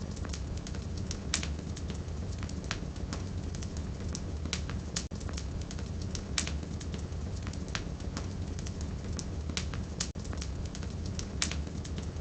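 Wood fire burning in a fireplace: firewood crackling with frequent irregular sharp pops over a steady low rumble of the flames.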